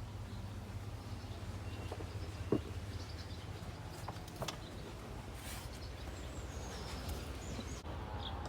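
Outdoor ambience: a steady low rumble with faint bird chirps and a few scattered knocks, the loudest about two and a half seconds in.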